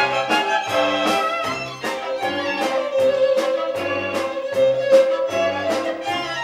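Solo violin playing a klezmer-style melody over an orchestra with strings and a steady bass beat of about two a second. Around the middle the violin holds one long note.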